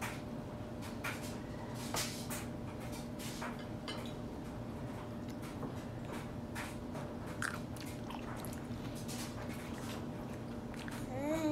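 Baby chewing finger food with her fingers in her mouth: soft wet smacks and clicks scattered throughout, over a steady low hum. A short squeal that rises and falls comes near the end.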